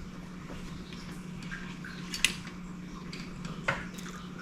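Small handling noises of wires and parts on a workbench: two short sharp clicks, one about two seconds in and a fainter one near the end, over a steady low hum.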